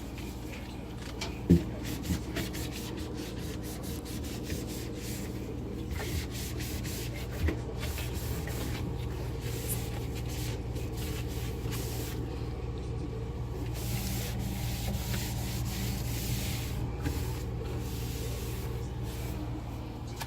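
Cloth wiping and rubbing over refrigerator surfaces in repeated strokes, over a steady low hum, with a few sharp knocks, the loudest about one and a half seconds in and another about seven seconds later.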